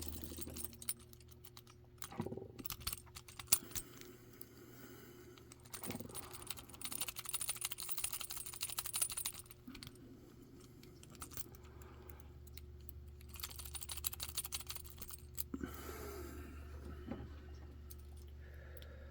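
Lock-picking tools jiggled in a pin-tumbler lock's keyway: spells of rapid small metal clicks and rattling, with pauses between, as the tension tool is worked down around the pins.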